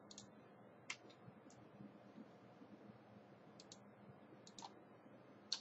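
Faint, scattered clicks of computer input over near-silent room tone: about six in all, two of them quick double clicks.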